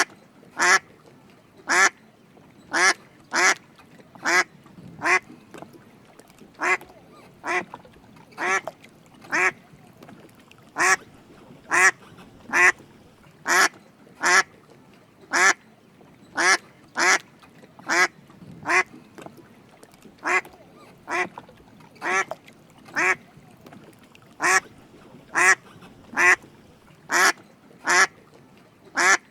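Drake mallard giving a steady series of short quacks, a little more than one a second.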